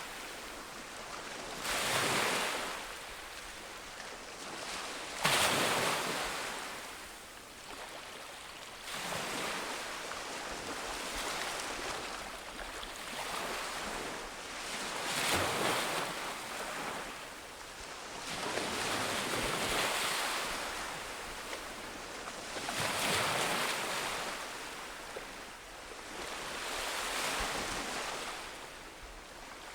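Ocean waves breaking on a beach, each wave swelling in a rush of surf every few seconds and then washing back, with some wind on the microphone.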